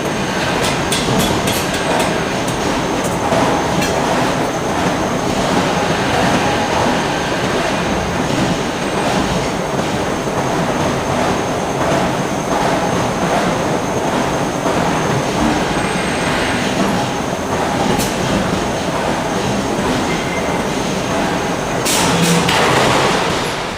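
Continuous clanking and rumbling of heavy forging-shop machinery, with many short metallic knocks and bangs through it.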